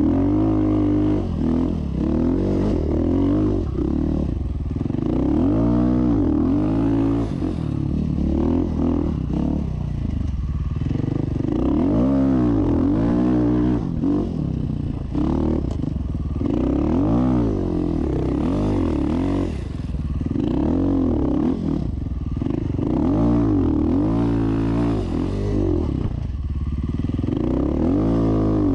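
Rally motorcycle engine revving up and down over and over, its pitch rising and falling every second or two as it is worked hard through soft dune sand.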